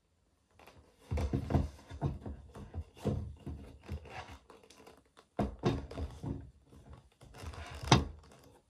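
Hands handling a pair of polished black leather double monk strap shoes, knocking and thunking them against a wooden tabletop as they are moved, turned and set down, with rustling in between. The sharpest knock comes near the end.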